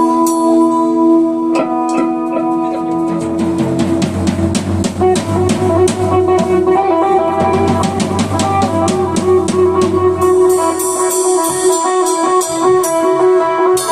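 Music: a song with guitar and drum kit, a steady beat and a bass line coming in a few seconds in.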